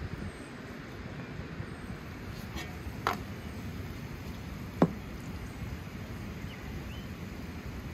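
Two sharp knocks of a metal ladle against a large aluminium cooking pan, about three and five seconds in, the second louder, over a steady hiss.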